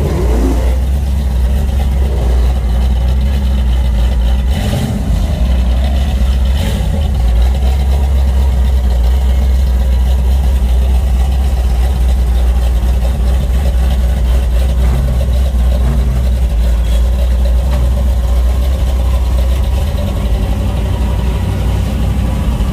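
Car engine idling with a deep, steady rumble, from the Chevrolet Chevelle Laguna S-3 it sits beside.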